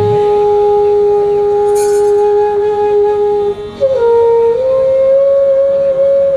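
A wind instrument, played close into a microphone, holds one long note for about three and a half seconds, then slides up through a short step to a higher note that it holds to the end.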